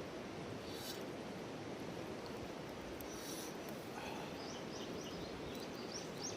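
Steady outdoor background hiss with two brief high rustling bursts, then about two-thirds of the way through a small bird starts a quick series of short, high chirps, a few each second.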